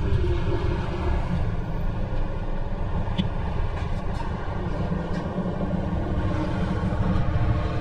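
Steady low rumble of wind and tyre noise from riding a Segway D40X electric scooter, with a few faint clicks.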